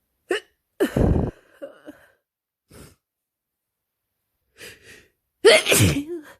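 Person with a head cold sneezing twice, once about a second in and again near the end, with quick breaths in between.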